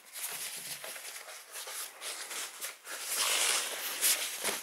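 Packaging wrap rustling and crinkling as a laptop is unwrapped and slid out of it. It gets louder about three seconds in.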